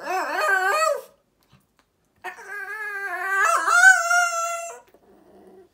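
Poodle whining and howling in a 'talking' way: a short wavering whine, then after a pause a longer howling whine that wobbles in pitch and then holds steady before stopping.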